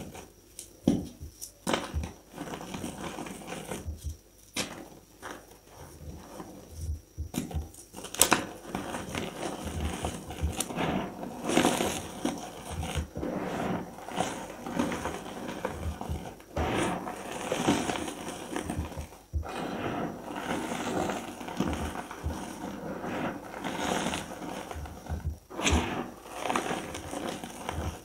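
Reformed gym chalk, dyed red with glitter, crushed and crumbled by hand: dry, powdery crunching and crackling as chunks break and crumbs fall onto the pile. It is sparser for the first several seconds and denser and louder from about eight seconds in.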